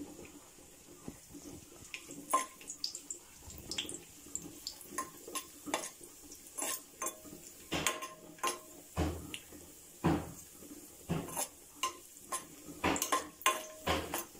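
Stainless steel slotted spatula knocking and scraping against a non-stick kadai in irregular clinks, stirring cashews and raisins in hot ghee; the clinks start about two seconds in and come more often later.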